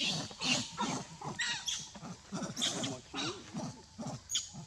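Macaques calling in a rapid run of short calls, about two or three a second.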